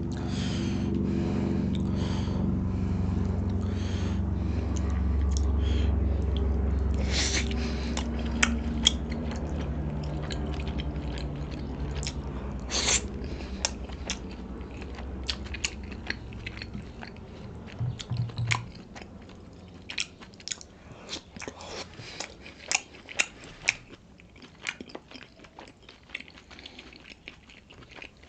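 Close-miked chewing and mouth sounds of someone eating pork momos (steamed dumplings), with many short wet smacks and clicks. A steady low hum sits under the first half and fades out about two-thirds of the way through.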